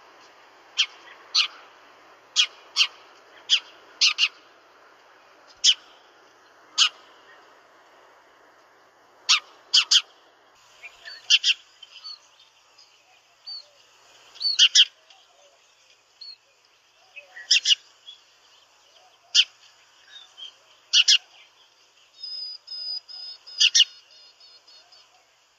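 House sparrow chirping: single sharp, short chirps repeated at uneven intervals, often a second or less apart. Near the end comes a quick run of thin, high notes, about eight a second, lasting a couple of seconds.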